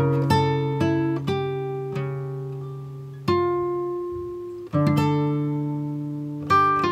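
Background music: plucked guitar notes and chords that ring out and fade, with a fresh note or chord struck every second or so.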